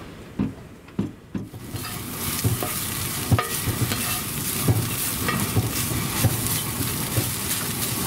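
Tofu, onion and peppers sizzling in a cast iron skillet while a spatula stirs and scrapes the pan with small clicks. The sizzling starts about two seconds in, after a few sharp knocks.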